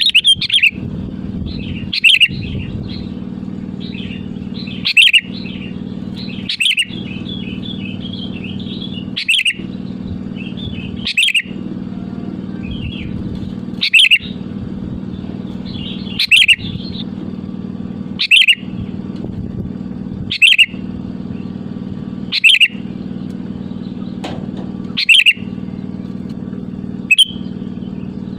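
Sooty-headed bulbul (kutilang) calling: short, bright, loud phrases repeated about every two seconds, with softer twittering between them for a while around the middle. A steady low hum runs underneath.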